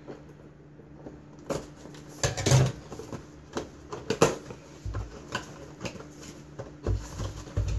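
Utility knife cutting into a cardboard figurine box and the box being handled: irregular clicks, scrapes and knocks, the loudest about two and a half and four seconds in, with a few dull thumps later.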